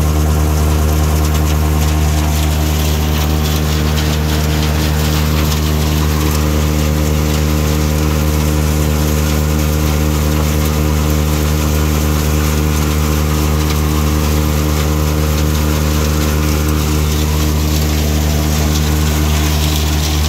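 John Deere tractor diesel engine running steadily at PTO speed, driving a forage blower as chopped corn silage is unloaded into it. A steady rushing hiss from the blower fan sits over the even engine note.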